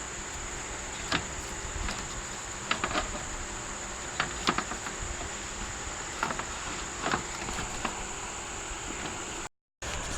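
Steady high-pitched insect drone, with scattered light knocks and clicks as the radiator cooling fan assembly is handled and set back into its mounting slots. The sound cuts out for a moment near the end.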